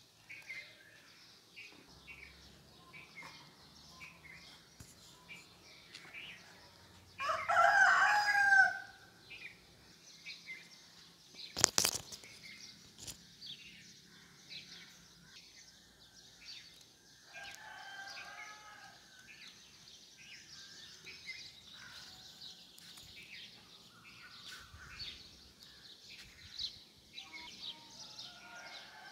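A rooster crowing, one loud crow of about two seconds some seven seconds in and fainter calls later, over the steady chirping of small birds. A single sharp click about twelve seconds in.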